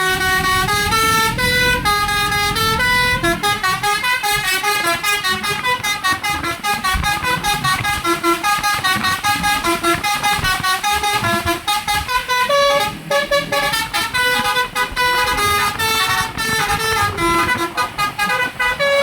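Bus 'telolet' Basuri multi-tone air horn playing a fast tune of quickly changing notes, over a low rumble of engine and road.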